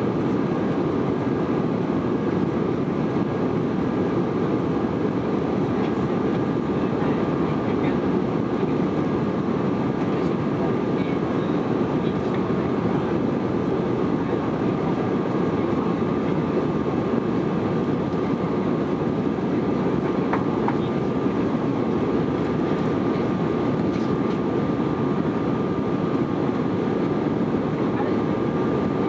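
Steady cabin noise of an Airbus A320-200 climbing after takeoff: a dense, even rush of engine and airflow with a couple of thin steady high tones over it.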